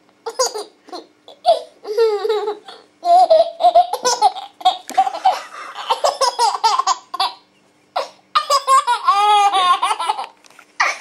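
A nine-and-a-half-month-old baby laughing in repeated high-pitched bursts. The laughs break off briefly near the eight-second mark, then start again.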